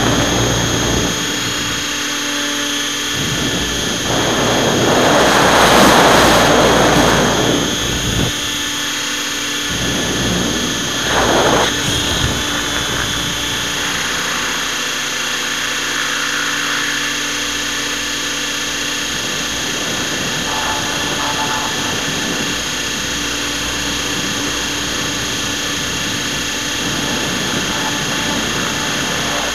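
Model helicopter's motor and rotor as heard from its onboard camera: a steady whine of several held tones. Louder rushes of noise come about six seconds in and briefly near twelve seconds.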